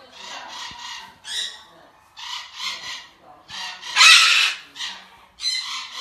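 Goffin's cockatoos giving a run of short, harsh squawks, with the loudest screech about four seconds in.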